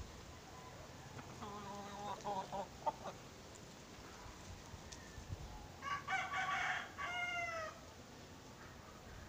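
A rooster crowing once, about six seconds in, a call of under two seconds that falls in pitch at the end. A shorter, lower call comes first, about a second and a half in.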